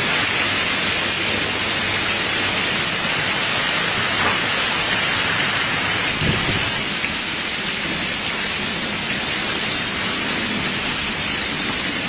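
Heavy rain pouring down in a storm: a dense, steady hiss of rain with no breaks.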